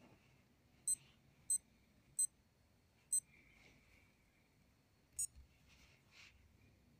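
Casio DW-200 digital watch beeping as its buttons are pressed: five short, high beeps at uneven intervals. The beeps show the watch working.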